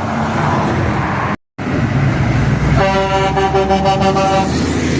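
Semi truck air horn giving one long blast of about a second and a half, several steady pitches sounding together, over low engine and road rumble. Before the horn the rumble runs on its own, broken by a very short drop to silence.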